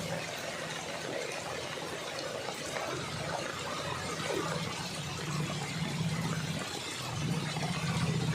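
A vehicle driving through shallow floodwater: a steady wash of water noise over a low engine hum, which grows louder near the end.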